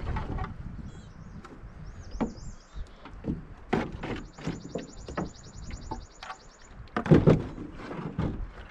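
Canoe paddling: irregular paddle strokes, splashes and knocks against the hull, the loudest a thump about seven seconds in. Small birds call over it, with a few high chirps early and a fast, even, high trill lasting about three seconds in the middle.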